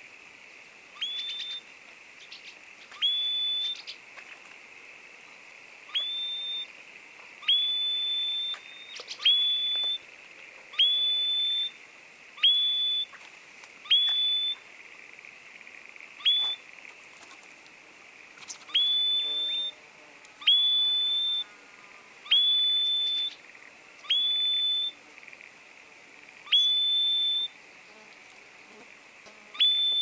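Repeated whistled bird call: about fifteen notes at uneven intervals, each sweeping sharply up and then holding one steady high pitch for half a second or so. A steady high hiss runs underneath.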